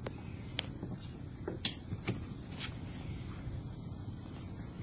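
Insects buzzing with a high, fast, even pulse. Over it come about six light clicks and knocks in the first three seconds, from hardware being handled at the boardwalk post.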